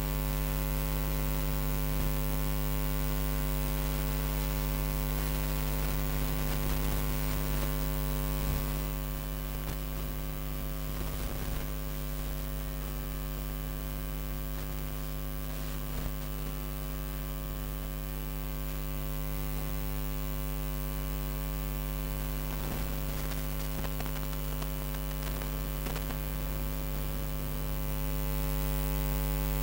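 Steady electrical mains hum, a low 50 Hz drone with a buzz above it, running unchanged and covering everything else. A few faint knocks come through it.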